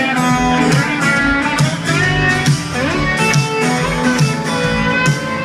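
Live rock band playing an instrumental song intro, led by strummed guitars over a steady drum beat.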